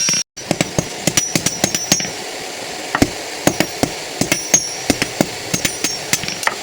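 Hand hammer striking a steel machete blade as it is forged: quick runs of blows, several a second, broken by short pauses, some with a high metallic ring.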